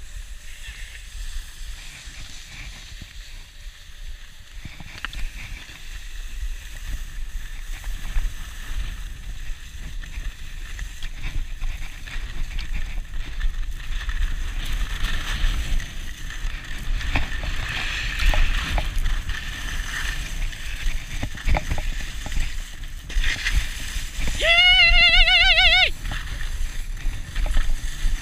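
Riding down a packed-snow ski run: a steady hiss and scrape of snow under the moving rider, with low wind rumble on the camera microphone. About 24 seconds in, a person lets out one high, wavering whoop lasting about a second and a half.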